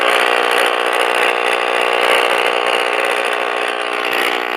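Emergency alert attention tone broadcast over radio: a steady, harsh, buzzing alarm tone marking a severe thunderstorm warning.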